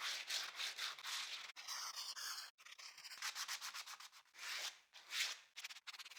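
80-grit sandpaper rubbed by hand over wood in short back-and-forth strokes, a soft rasping hiss with each stroke, several strokes a second.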